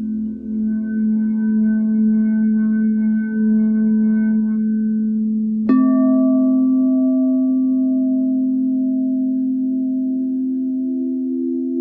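Crystal singing bowls ringing with a sustained low hum and pulsing overtones. About halfway through, a bowl is struck: a sharp hit followed by a new steady tone whose higher overtones fade over several seconds.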